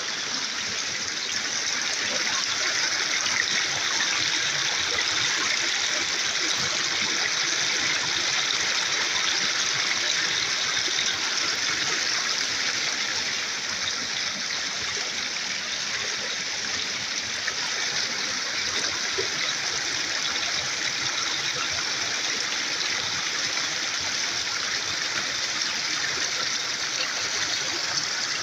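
Water running steadily in a shallow stream, an unbroken rushing and trickling with no surges or pauses.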